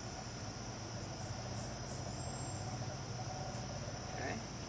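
Crickets chirping steadily in a continuous high drone, with a low steady hum underneath.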